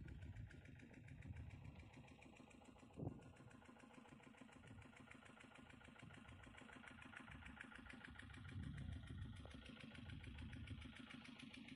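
Near silence with a faint engine running steadily in the distance, and one soft knock about three seconds in.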